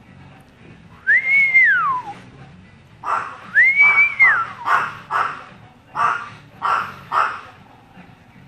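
Two long whistles, each rising and then falling in pitch, mixed with a run of short, sharp yaps from a small pet dog.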